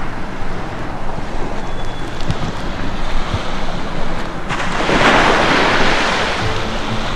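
Rushing noise of surf and wind, with a loud wash swelling up about four and a half seconds in and easing off over the next two seconds. A few low held notes come in near the end.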